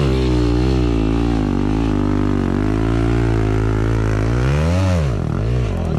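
Enduro motorcycle engine running at low, uneven revs, the pitch wavering as the throttle is worked, with a quick rev up and straight back down near the end.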